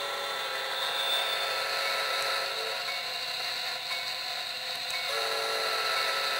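Digitrax sound decoder in a Kato SD70MAC model locomotive sounding its diesel air horn through a small Soundtraxx Mega Bass speaker: two held blasts, the second starting about five seconds in, over the decoder's steady diesel engine sound.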